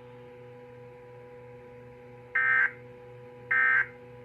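Two short bursts of Emergency Alert System SAME digital data tones, about a second apart, starting about halfway through, over a faint steady hum. These are the End of Message code that closes a NOAA Weather Radio alert.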